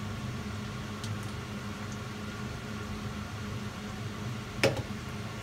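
Steady low hum of a kitchen appliance or fan, with a single sharp knock about four and a half seconds in.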